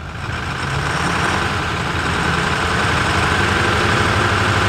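2008 Ford 6.4 L Power Stroke V8 turbodiesel brought up from idle to about 1500 rpm. Its sound rises over the first second or so and then holds steady. The engine has heavy crankcase blow-by, with flow roughly doubling at 1500 rpm.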